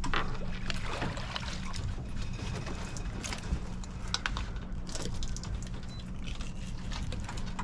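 A boat motor running steadily at slow trolling speed, with water splashing and trickling along the hull and scattered knocks and clicks of handling on deck.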